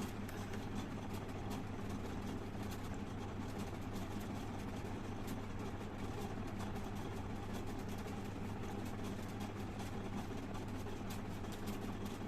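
Steady low hum with faint scattered clicks.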